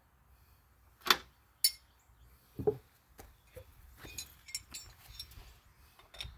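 Hand tools and chainsaw parts being handled: three sharp knocks in the first three seconds, the last a duller thud, then a string of lighter clicks and taps.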